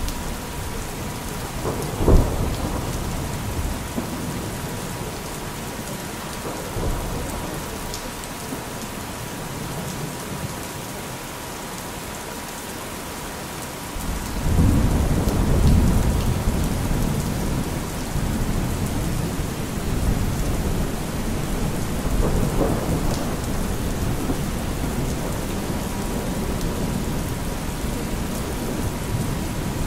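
Steady rain with thunder: a sharp crack about two seconds in and a long low rumble from about halfway. A steady 963 Hz tone runs under it.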